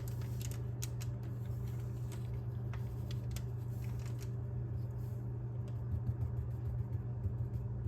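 Dry paintbrush dabbing and sweeping over a thin paper napkin laid on wet Mod Podge, pressing out air bubbles: faint, light scratchy strokes, most of them in the first half, over a steady low hum.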